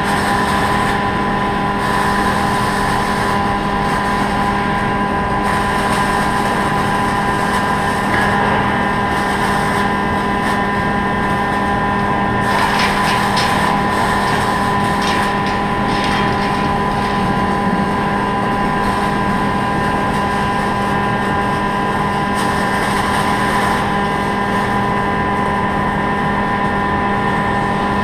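Robotic MIG welding cell running: a steady machine hum made of several fixed tones over a constant hiss, with a spell of crackling a little under halfway through.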